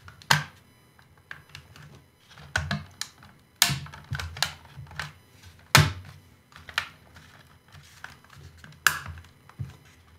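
Plastic snap-fit clips of a Hubsan Zino 2 Plus drone's body shell clicking into place as the shell halves are pressed together by hand. It is a string of sharp, irregular plastic clicks, with a few louder snaps spread through.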